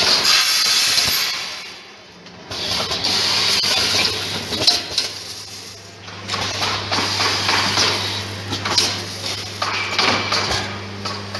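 Artikon SD-206 twin-head automatic screwdriving machine running: repeated bursts of hissing air with sharp clicks and knocks. A steady low hum sets in about two seconds in.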